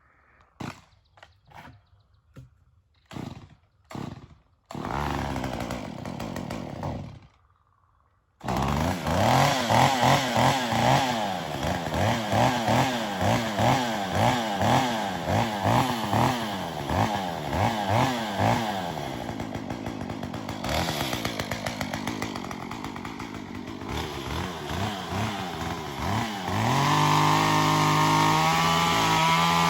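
A few short knocks, then a chainsaw running loud from about eight seconds in. Its pitch rises and falls again and again as it is revved and cutting into wood, then holds steady at a high rev near the end.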